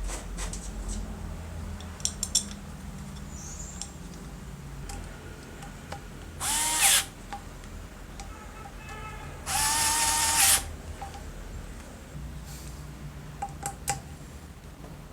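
A small cordless power screwdriver or drill runs in two short bursts of about a second each, its motor whining up to speed and then holding steady. Scattered clicks and knocks of metal parts being handled come in between.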